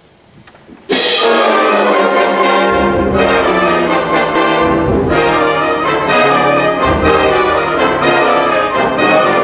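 Concert wind band playing, with brass and flutes. After about a second of quiet the full band comes in together and loudly, and the low brass joins in a couple of seconds later.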